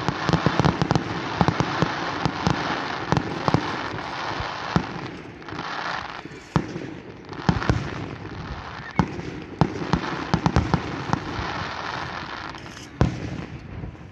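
Aerial fireworks display: frequent bangs from bursting shells over a continuous crackling fizz, with one sharp bang near the end.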